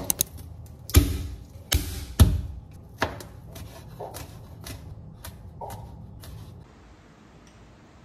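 Kitchen knife cutting garlic cloves on a bamboo cutting board: a few heavy knocks of the blade on the board in the first couple of seconds, then a run of lighter, quicker cuts that stop near the end.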